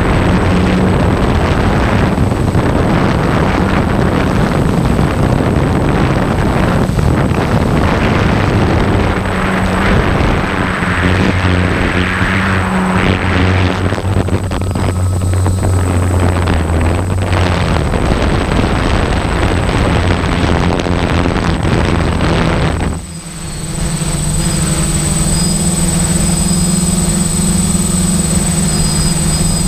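An engine running under loud rushing noise. About 23 seconds in the sound dips for a moment and settles into a steadier, even hum.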